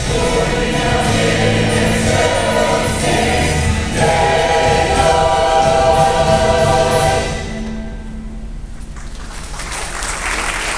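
Church choir singing a Christmas cantata number, the song ending about seven seconds in. Applause follows, swelling near the end.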